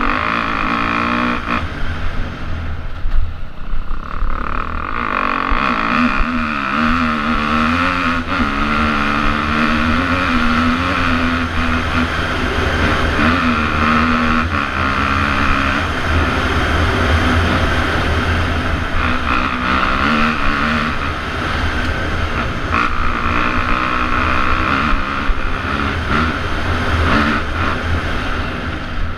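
Enduro motorcycle engine heard close up from an onboard camera while riding, its pitch rising and falling with the throttle, with a few knocks along the way.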